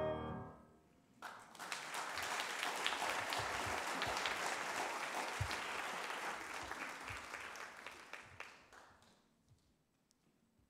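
The last held note of a flute and oboe duet dies away, and about a second later an audience breaks into applause, which goes on for several seconds and then fades out.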